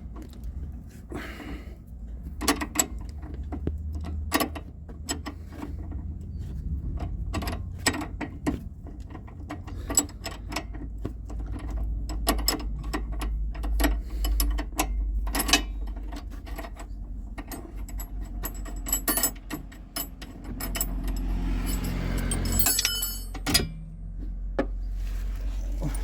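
Irregular metallic clicks and clinks of a wrench and loose metal parts as a car's stabilizer (sway-bar) link is unbolted, over a low steady hum.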